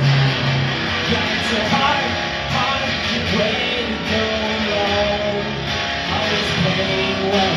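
Amplified electric guitar played live in a rock song, with chords and picked lines going on steadily.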